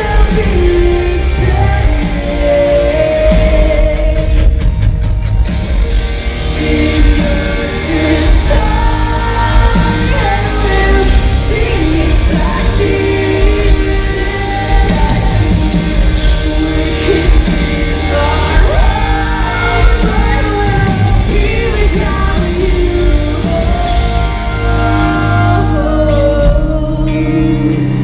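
Live rock band playing with a lead vocalist singing, recorded from the audience in a large arena hall: loud drums, bass and distorted guitars under the singing.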